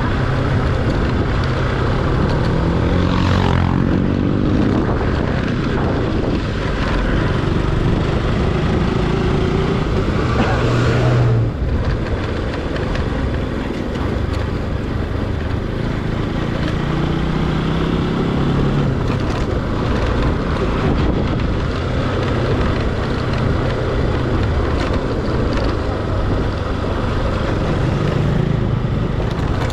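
Motorcycle engine running under way, its pitch rising a few times as it accelerates, under steady wind rush on the microphone.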